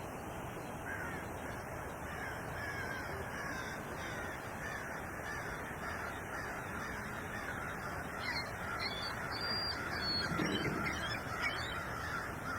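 Steady wind noise with birds calling repeatedly over it. Higher, shorter chirps join in during the last few seconds.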